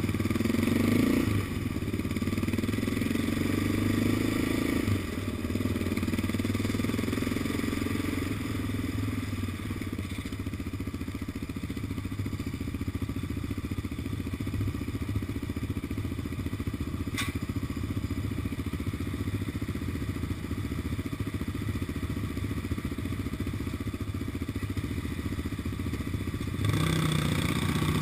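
Yamaha Raptor 700 quad bike's single-cylinder engine, revving in the first few seconds, then running at low steady revs before revving up again near the end. A single sharp click a little past halfway.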